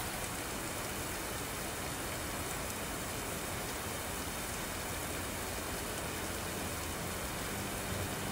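Steady rain falling on pavement, an even hiss and patter that does not let up.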